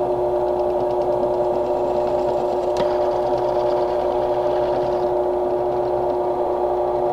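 Benchtop drill press motor running with a steady hum while a 5/32 drill bit is fed down into a rocket body tube. There is a single sharp click about three seconds in.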